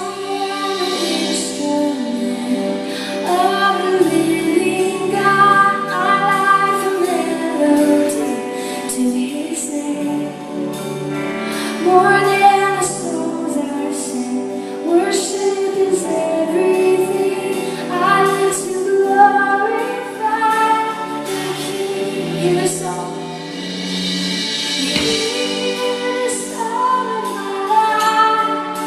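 A female vocalist singing a Christian worship song over instrumental band accompaniment.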